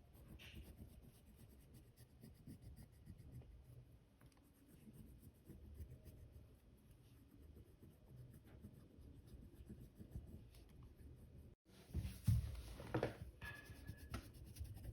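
Faint scratching of a colour being stroked onto paper as leaf edges are outlined in dark green. Near the end there is a short spell of louder handling noise.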